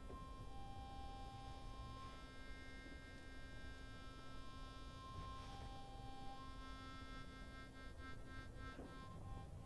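Harmonica played softly in long held notes, the pitch shifting between a couple of tones, over a faint steady hum.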